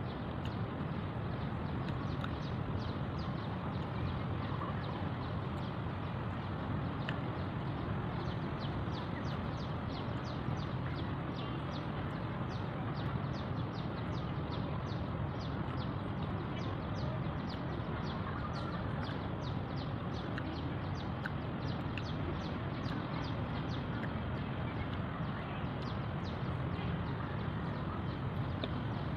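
Outdoor background noise: a steady low rumble with a fast, regular high ticking, about three ticks a second, through most of it.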